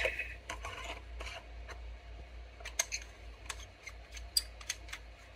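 Scattered light metallic clicks and ticks of a metal lightsaber hilt being handled, its chassis seated and its sections twisted together.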